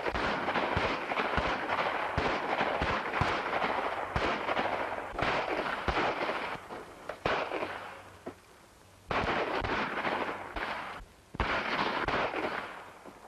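A rapid volley of many overlapping gunshots, heavy for about seven seconds. It then thins out, with two more bursts of fire about nine and eleven and a half seconds in. The shots are on an old 1930s western film soundtrack.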